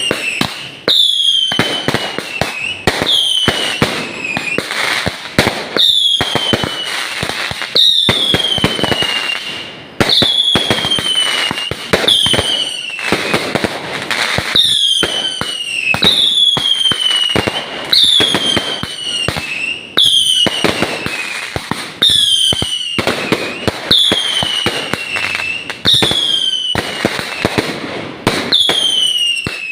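Fireworks going off in steady succession. About every two seconds a whistle falls in pitch, surrounded by rapid crackling bangs.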